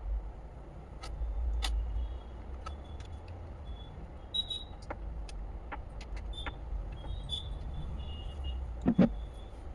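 Scattered light clicks and taps over a steady low rumble, with one louder knock about nine seconds in.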